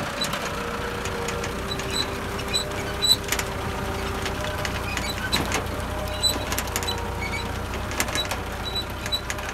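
Massey Ferguson 385 tractor's four-cylinder diesel engine running steadily as it pulls a zero-till seed drill, with irregular clicks and knocks from the drill's metal parts working the soil.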